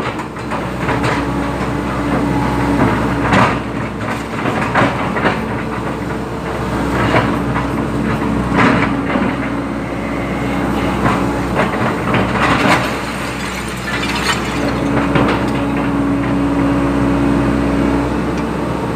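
Excavator's diesel engine running steadily, with irregular metallic clanks and knocks from the machine working.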